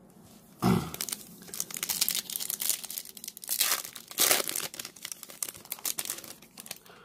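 A Topps trading-card foil pack being torn open and its wrapper crinkled by hand: irregular crackling rustles from about half a second in.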